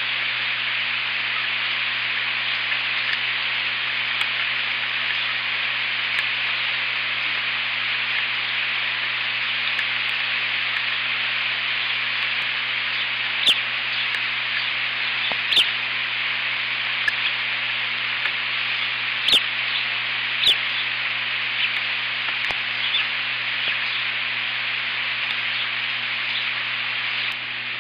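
Steady rain: an even hiss with a handful of sharp ticks of drops striking close to the microphone, most of them in the middle stretch.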